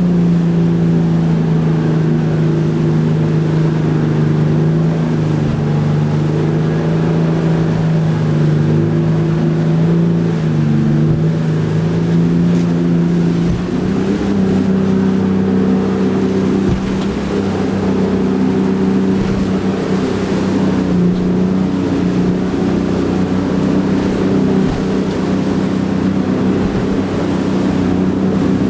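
River jet boat's engine and water jet running hard, heard from inside the enclosed cabin as a steady drone that wavers in pitch, then rises and holds about halfway through while the boat runs whitewater rapids, with rushing water and scattered knocks against the hull.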